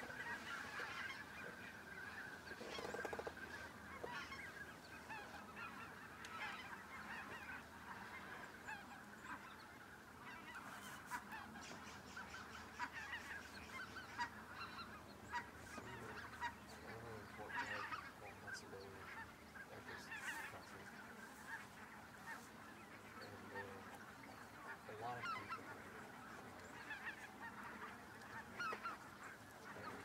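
A large flock of snow geese with Ross's geese calling nonstop, a dense chorus of many short overlapping calls with no break.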